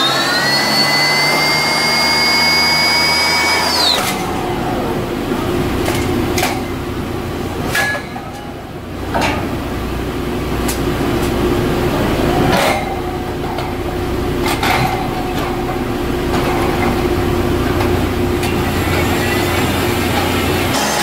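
Drilling rig floor machinery during pipe tripping. A mechanical whine rises and holds steady, then winds down and stops about four seconds in. After that, a steady machinery hum runs on under irregular metallic clanks and knocks from pipe and tool handling.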